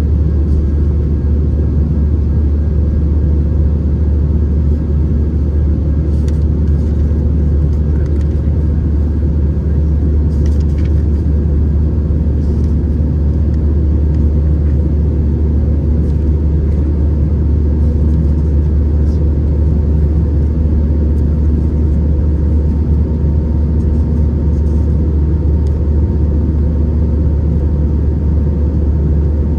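Steady low drone inside the cabin of an Airbus A319-111 airliner, from its CFM56 jet engines and the airflow, with a few faint steady tones above it.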